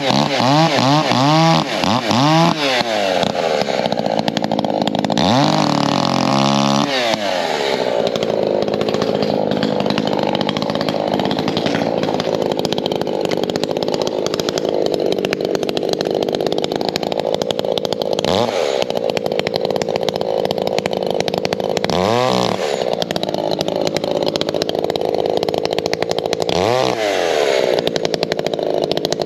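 Ported Echo two-stroke chainsaw cutting oak firewood rounds, held at high revs through the cuts. Between cuts it drops off throttle and revs back up several times: about a second in, around six seconds in, and three times in the second half.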